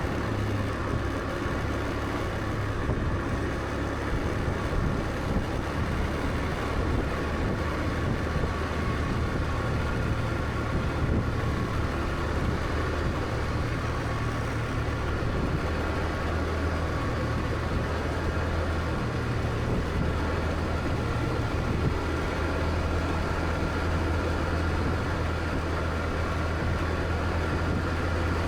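Scooter engine running steadily under way, a low, even drone over constant road noise.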